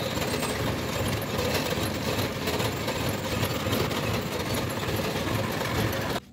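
Jeepney engine running steadily at idle, cutting off suddenly near the end.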